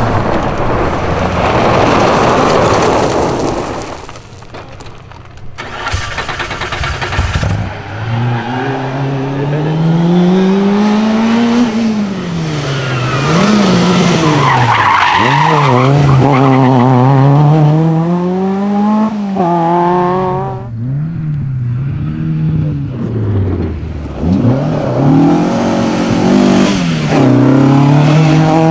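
Historic rally cars, among them Ford Escorts and a Volkswagen Golf, driven flat out one after another. At first there is a hiss of gravel thrown up by the tyres over the engine. Then the engines rev hard, their pitch climbing and falling again and again, with brief dips between cars.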